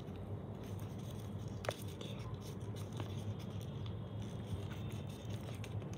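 Faint rustling and scratching of origami paper being folded and creased by hand, with one sharp click under two seconds in, over a steady low hum.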